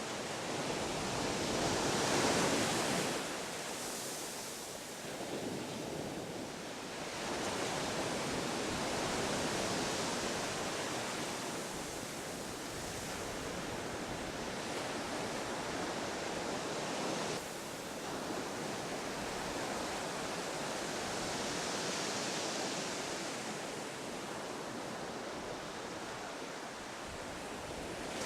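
Ocean surf breaking and washing on a shore: a steady rush that swells and eases with the waves, loudest about two seconds in.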